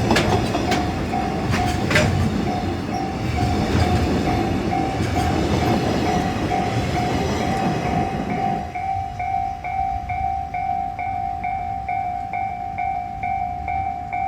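Japanese level-crossing alarm ringing its repeating electronic ding as a freight train runs past over the crossing, its wheels clacking over the rail joints. The train's rumble drops away after about eight and a half seconds, leaving the crossing alarm still ringing.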